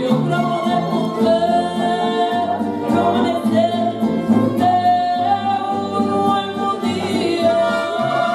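Live mariachi band playing, with strummed guitars under a sung melody of long held notes.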